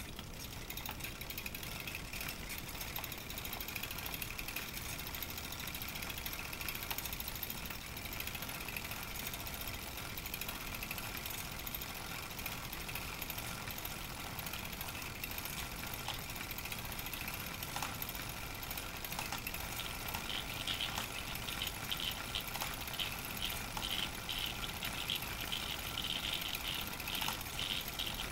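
A Pathescope Baby hand-crank projector of around 1930 running a 9.5 mm film, its mechanism making a rapid, steady clatter of fine clicks that grows a little louder about twenty seconds in.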